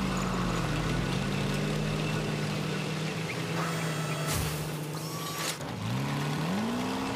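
Sci-fi machinery sound effect: a rescue vehicle's mechanical arms hoisting a capsule out of the snow, with a steady layered hum. There are two short bursts of hiss about four and five and a half seconds in, and rising whines near the end.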